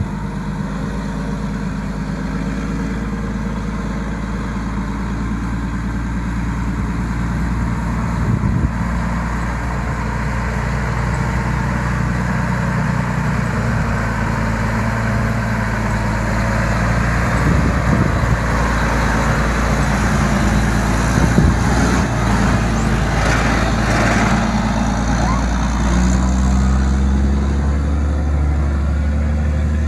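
Detroit Diesel Series 60 12.7-litre six-cylinder turbo diesel of a Terex TA40 articulated haul truck running steadily. A stretch of rattling and hiss comes in about two-thirds of the way through, and the low engine note grows heavier near the end.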